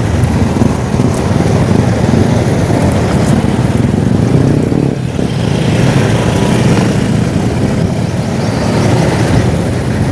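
Steady rumble of a moving road vehicle: engine and road noise while travelling.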